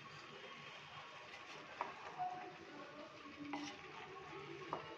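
Chopped vegetables being stirred in a pot with a wooden spatula over a faint sizzle, with a few sharp knocks against the pot.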